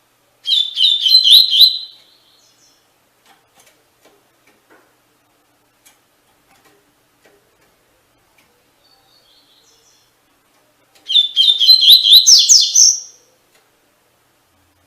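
Double-collared seedeater (coleiro) singing the tui-tui song type: two short phrases of rapid, repeated high notes, one near the start and one about ten seconds later.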